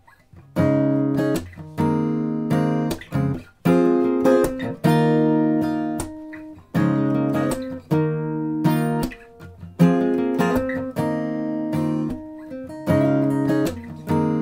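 Background music: acoustic guitar chords, each one struck and left to ring, about one a second.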